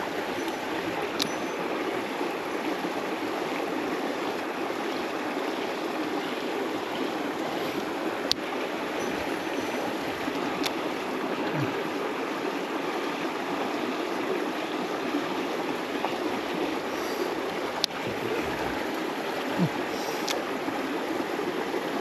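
A small mountain stream running steadily over rocks, with a few faint, sharp clicks scattered through it.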